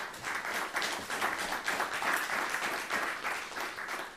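Audience applause: many people clapping at once in a steady patter that eases off near the end.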